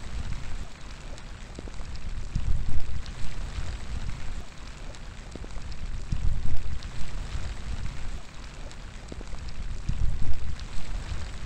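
Steady rain falling, with scattered drops ticking sharply, and low rumbling gusts of wind that swell and fade about every four seconds.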